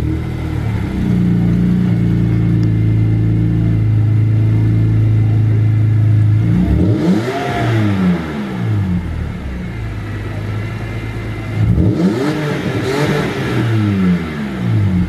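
BMW E46 car engine idling steadily just after being started, then revved up and let fall back to idle twice, once midway and again near the end.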